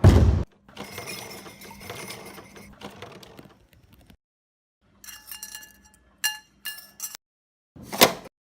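Foley clatter: a heavy thump, then a few seconds of rustling noise, then several short ringing clinks, like small metal or glass objects tapped together, and a sharp knock near the end.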